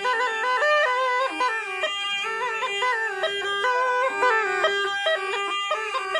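Murli, the Rajasthani gourd pipe, playing a quick, ornamented melody over a steady unbroken drone note.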